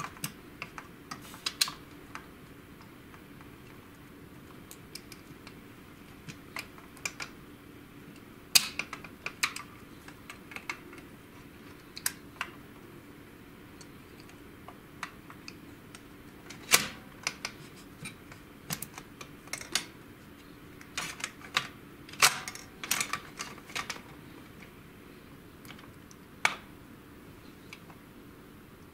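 Irregular clicks and knocks of plastic printer parts being handled: rollers of an HP LaserJet 5L/6L paper pickup assembly slid along their metal shaft and fitted into the plastic frame. A few clicks stand out sharper than the rest.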